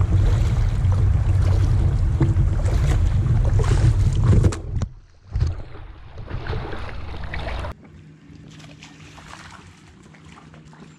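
A kayak being paddled: water splashing and rushing along the hull with the paddle strokes, with wind rumbling on the microphone. About three quarters of the way through the sound cuts off abruptly to a much quieter background.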